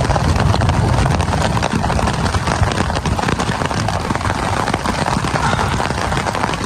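Rain with small hail beating on a poncho shelter overhead: a loud, steady, dense patter of countless small hits.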